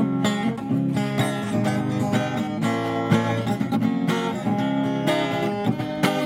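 Acoustic guitar strummed in a steady rhythm, full chords ringing.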